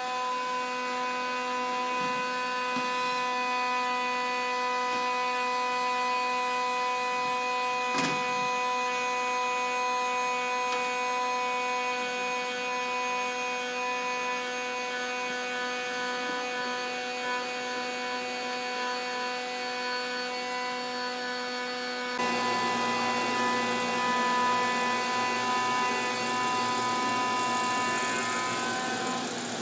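A steady machine hum from workshop equipment. About two-thirds of the way through, a bench disc sander joins in, louder, sanding a piece of wood held against the disc.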